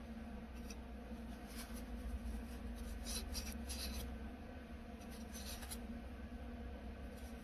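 Acetone-dampened paper towel twirled and rubbed inside the neck of a glass vase, wiping out stray primer: a few short scratchy rubbing bursts over a faint steady hum.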